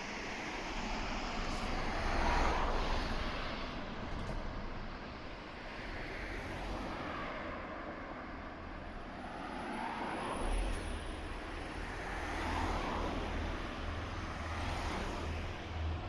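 Road vehicles passing one after another, each one's tyre and engine noise swelling and fading away.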